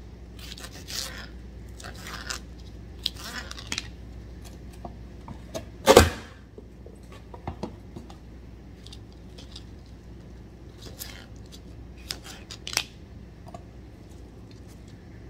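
A serrated kitchen knife cutting green bell peppers on a plastic cutting board: short, scattered scraping cuts and light clicks, with one sharp, loud knock about six seconds in.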